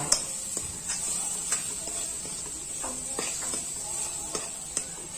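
A masala frying in oil in a steel kadai, with a steady sizzling hiss. A metal spatula stirs and scrapes against the pan, making scattered clicks and knocks.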